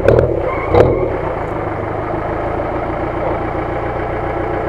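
UAZ-469 off-road vehicle's engine running steadily as it crawls over rocks in a muddy creek bed, with a couple of sharp knocks in the first second.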